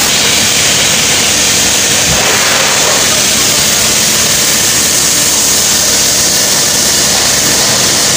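Car wash bay noise: a loud, steady hiss of water spray and compressed air from the wash equipment, with no breaks or changes.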